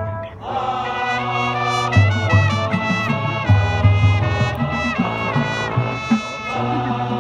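Marching band brass playing loud sustained chords, trumpets on top over trombones and low brass. The sound dips briefly just after the start, then carries on, the chords changing every second or two.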